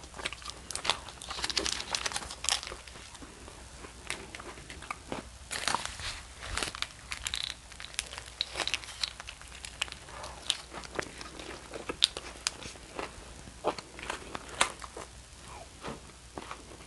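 Aluminium foil wrapped around a chicken gyro crinkling and crackling as it is handled and bitten into, mixed with close-miked biting and chewing of the wrap.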